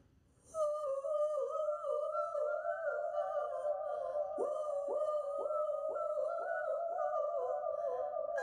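A woman singing solo without accompaniment, holding a high vocal line that she ornaments with quick runs. From about four seconds in come a string of fast upward scoops into the note, roughly two a second.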